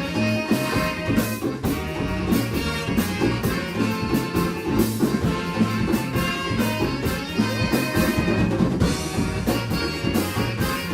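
Live band playing a song, with a drum kit hitting a steady beat under a stepping bass line and several melodic instruments.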